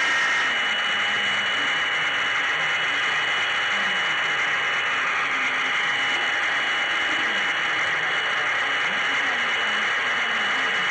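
HO scale model train running along the track, picked up by a camera riding on the train: a steady mechanical whir and rattle from the motor, gears and wheels on the rails, with a thin high whine over it.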